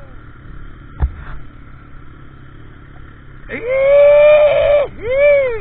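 Motorcycle engine revved twice over a steady rush of riding noise. The first rev climbs quickly and holds high for about a second and a half before dropping away, and the second is a short blip that rises and falls. A single sharp knock comes about a second in.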